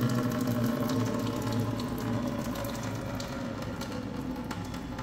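Condensate water draining out of a ceiling cassette air conditioner's drain pan through its opened drain plug, a steady rushing flow that starts at once and slowly grows quieter.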